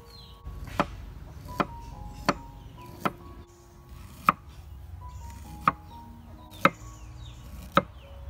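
A cleaver chopping food on a round wooden chopping board: eight sharp knocks at uneven spacing, roughly one a second. Soft background music with held notes plays underneath.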